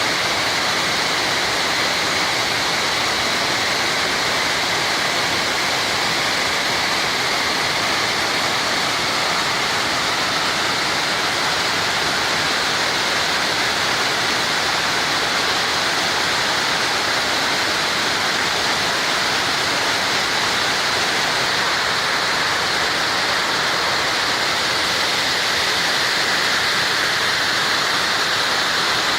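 Waterfall running in a steady, even rush of falling water.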